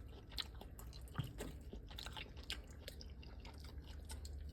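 Faint chewing and lip-smacking of people eating pieces of sliced steak: a scatter of small wet clicks over a low steady hum.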